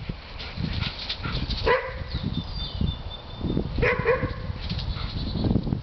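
Dogs giving play barks to egg another dog on: a sharp bark about a third of the way in and a quick double bark about two seconds later, over a low rumbling background noise.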